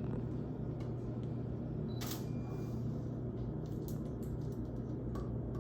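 Camera shutter clicks while the tooth shade is photographed, over a steady low hum, with a short rushing burst about two seconds in.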